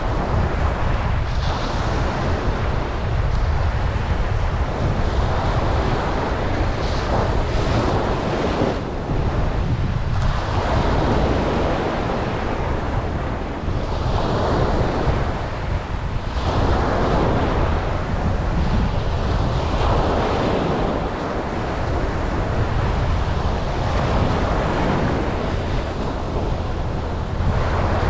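Ocean waves breaking and washing up a beach, swelling and fading every few seconds over a constant surf roar, with wind buffeting the microphone.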